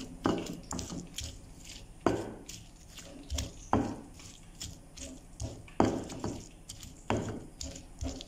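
Stone pestle pounding fried green chillies, shallots and bitter melon in a stone mortar (cobek and ulekan) for sambal: irregular dull knocks, with a heavier stroke about every one and a half to two seconds.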